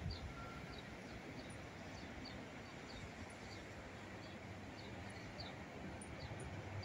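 Steady low background hum with a small bird chirping over it, a short high call repeating about every half second.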